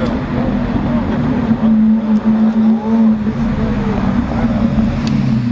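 Lamborghini Aventador V12 engine running at steady, held revs with a constant low drone.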